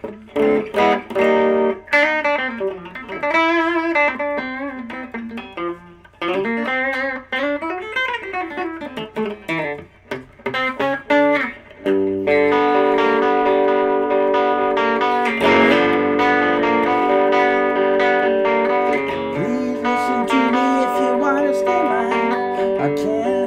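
Epiphone Wilshire P90 electric guitar on its bridge P90 pickup, played through an amp. For about twelve seconds it plays single-note lines with string bends and vibrato, then it switches to ringing, sustained chords.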